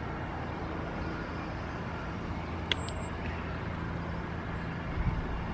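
Steady hum of distant road traffic, with one light sharp click about halfway through and wind starting to buffet the microphone near the end.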